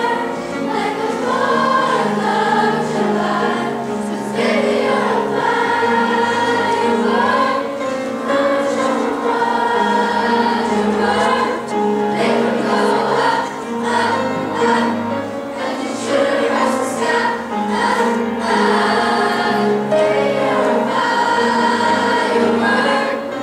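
Youth concert choir of girls' and boys' voices singing a pop-song arrangement in parts, over a line of steady low notes that change about once a second.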